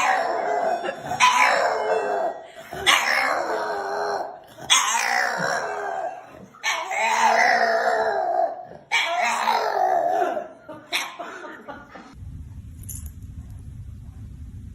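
A dog howling in a run of about five long, drawn-out calls, each a couple of seconds, starting sharply. The calls stop about twelve seconds in, leaving a low steady hum.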